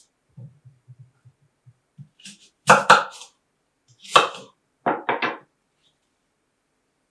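Kitchen knife cutting an apple into chunks on a wooden cutting board: a few soft taps at first, then several sharp cuts and knocks of the blade on the board in small groups, the loudest about three seconds in.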